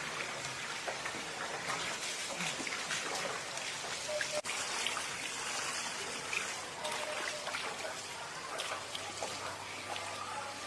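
Water trickling steadily, with a few faint short tonal sounds over it.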